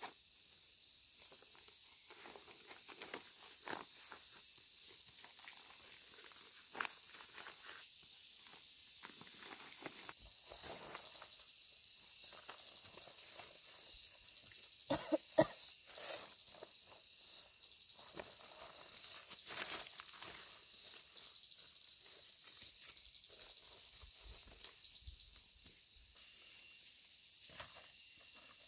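Insects shrill steadily at a high pitch. Through the middle of the clip a pulsing call repeats about once a second. Scattered light knocks and rustles are heard, a cluster of sharper knocks about halfway through being the loudest.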